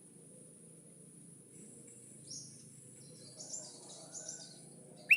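Faint natural background in a pause between a sooty-headed bulbul's calls: a steady high hiss like insects, with a few soft, high bird chirps about two seconds in and again near the end. A loud bulbul call starts at the very end.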